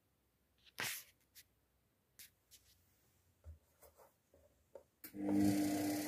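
Luxor WM 1042 washing machine: a few light clicks and knocks, then about five seconds in its motor starts with a sudden steady hum and whir.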